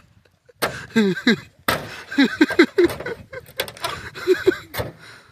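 A few hard strikes on a car's body as someone hacks at it to make a hole into the trunk: sharp, sudden impacts, the first about half a second in and another near the end. People's voices call out between the blows.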